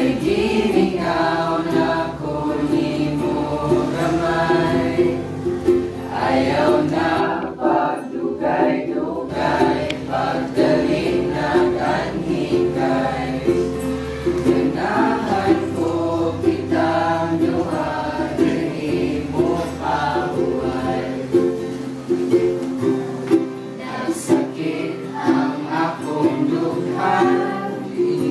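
A group of students singing a song together, accompanied by a strummed ukulele and an acoustic guitar.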